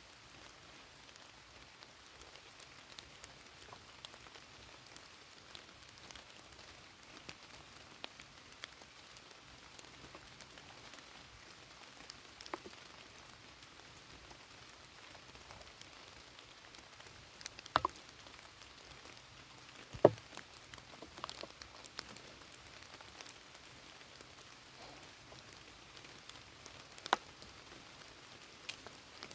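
Steady light rain falling, an even hiss dotted with scattered drops tapping. A few sharper, louder taps stand out, around the middle and near the end.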